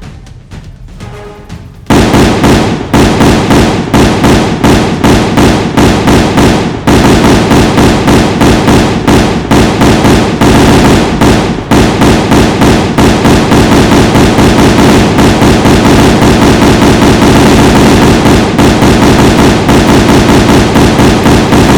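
Loud music with rapid, repeated pops, about two to four a second, starting suddenly about two seconds in.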